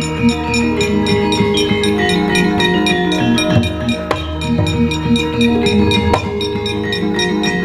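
Javanese gamelan ensemble playing wayang kulit accompaniment: metallophones ring out quick repeated notes over drumming and a low sustained tone, with a couple of sharp strikes about four and six seconds in.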